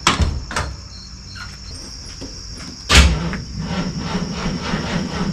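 An AMC 360 (5.9 L) V8 fires up about three seconds in with a sudden loud burst through its new exhaust, then settles into a steady idle. Two sharp knocks come just before, near the start.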